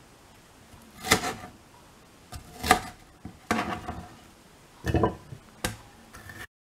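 Chef's knife slicing red bell pepper on a plastic cutting board: about five separate taps of the blade hitting the board, spaced irregularly, cut off abruptly near the end.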